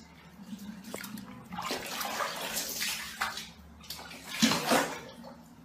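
Water splashing in a small plastic tub as a kitten paddles and scrambles in it: a run of uneven splashes, the loudest about four and a half seconds in.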